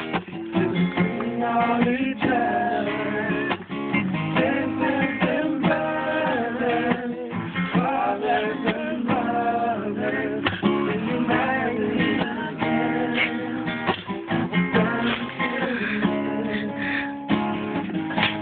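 A song with a strummed acoustic guitar and voices singing, running without a break.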